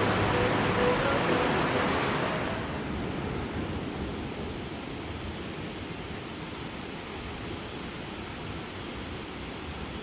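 Steady rush of a mountain valley stream flowing over rocks, dropping in level a few seconds in and then holding even.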